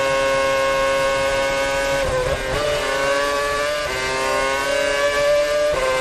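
Onboard sound of a 2010 Red Bull Formula One car's 2.4-litre Renault V8 at high revs, a steady high-pitched engine note. About two seconds in the note dips and wavers, drops again near four seconds, then climbs and returns to its earlier pitch just before the end.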